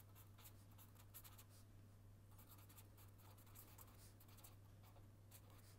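Faint scratching of a pen writing on paper in short, quick strokes, over a steady low electrical hum.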